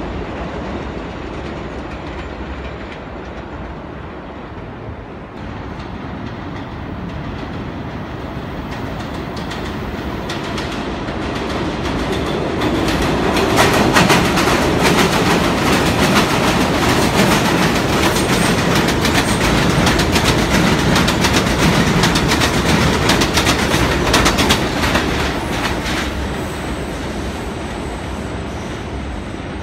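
New York City subway trains on an elevated steel line: a train approaching in the distance, then a train passing close, its wheels clattering over the rail joints. The clatter grows louder from about 13 seconds in and fades after about 25 seconds.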